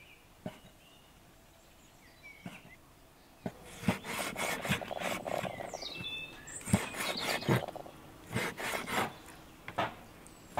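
Large kitchen knife slicing raw lamb offal on a wooden cutting board. After a quiet first few seconds, a run of uneven cutting strokes begins, scraping through the meat and knocking on the board. Small birds chirp a few times in the background.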